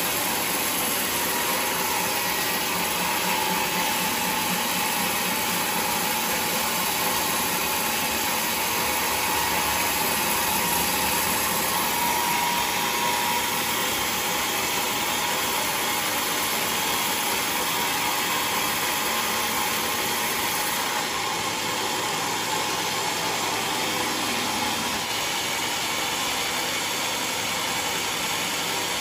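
Sawmill machinery running steadily: a continuous mechanical noise with a faint steady hum, changing slightly about three-quarters of the way through.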